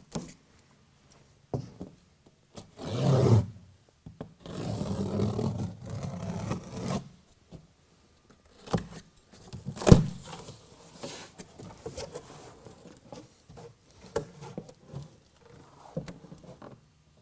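Utility knife slicing through a corrugated cardboard box: a short rasping cut about three seconds in and a longer scraping cut just after, then a sharp knock about ten seconds in and smaller scrapes and clicks of cardboard being handled.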